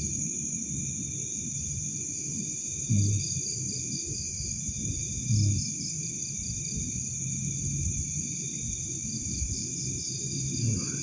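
Steady night chorus of crickets and other insects trilling, under a low rumble, with two soft thumps about three and five seconds in.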